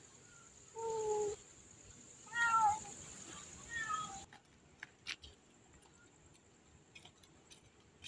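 Stray cats shut in plastic pet carriers meowing: three drawn-out meows, each falling in pitch, in the first four seconds, then a few faint clicks.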